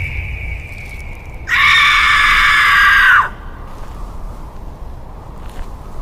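A high-pitched scream held for about a second and a half, dropping in pitch as it breaks off.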